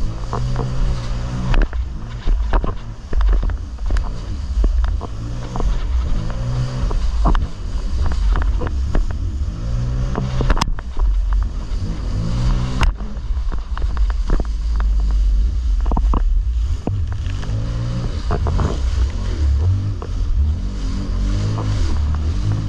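Jet ski engine running at speed, its pitch swelling and falling every second or two as the craft rides over waves, with a heavy low rumble and sharp slaps of water against the hull.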